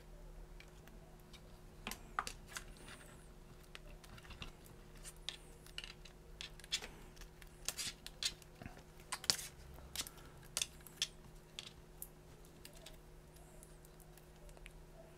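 Faint, irregular small plastic clicks and rustles as spiral wire wrap is wound around a bundle of jumper wires, over a steady low hum.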